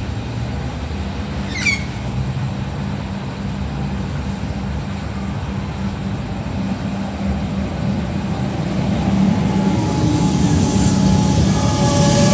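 A train running at the station with a steady low hum, growing louder toward the end as it comes closer, with faint whining tones at the end. A brief high chirp sounds about a second and a half in.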